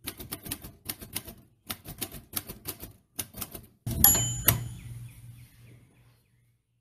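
Manual typewriter keys striking in quick runs with brief pauses. About four seconds in comes a louder strike with a ringing tone, the typewriter's bell, fading out over a second or two.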